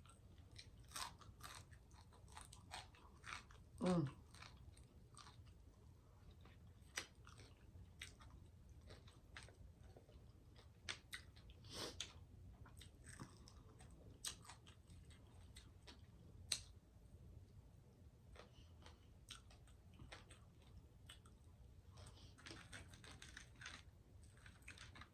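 Close-miked chewing and crunching of fried croaker fish: scattered short crackles and mouth clicks. A brief "mm" of enjoyment comes about four seconds in.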